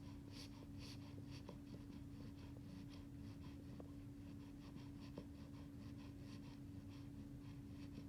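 Eight-week-old beagle puppy snoring softly in his sleep: faint, rapid little ticking sounds repeating several times a second, over a steady low hum.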